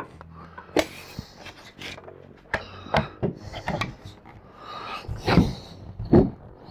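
Irregular knocks and rattles of a corded drill and bed parts being handled against a wooden bunk bed frame, the loudest a pair of knocks a little after five and six seconds in.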